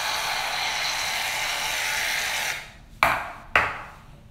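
Aerosol shaving cream can hissing steadily as foam is sprayed into a bowl of slime; the spray stops about two and a half seconds in. Two sharp knocks follow about half a second apart.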